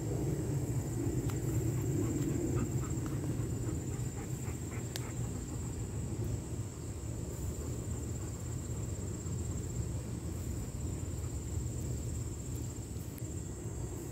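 Outdoor ambience: insects trilling steadily at a high pitch over a constant low rumble, with a few faint ticks about two seconds in.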